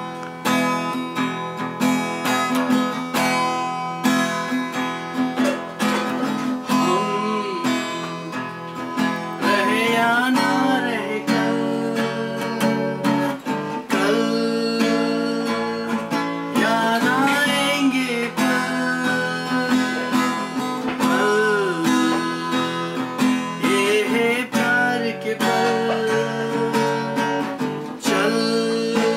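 Steel-string acoustic guitar strummed in steady chords, playing a song's instrumental introduction.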